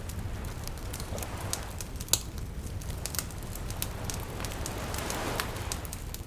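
Wood fire crackling with scattered sharp pops, the loudest about two seconds in, over gentle lapping waves that swell twice.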